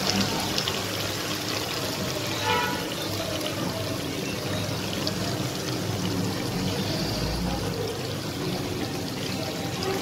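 Aloo baingan curry sizzling steadily in a hot wok.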